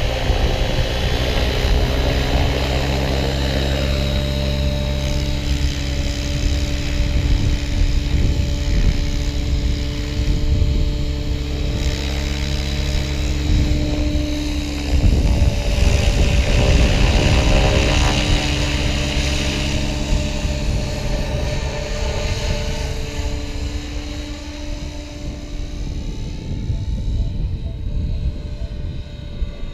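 Align T-Rex 700E electric RC helicopter in flight: the whine of its 12-cell electric motor and drivetrain over the whoosh of the spinning rotor blades. The pitch holds steady, shifts about halfway through, and bends up and down in the last few seconds as the helicopter manoeuvres.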